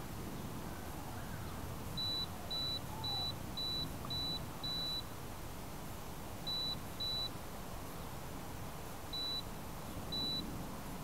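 High-pitched electronic beeper on a downed quadcopter beeping in short, identical beeps: six in a row about half a second apart, then two beeps, then two more, over a steady background hiss.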